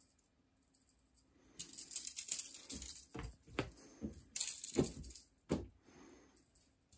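A cat dashes across a wooden floor after a wand toy. There are about six thuds of its paws landing, mixed with two bursts of high, scrabbling, jingling rattle.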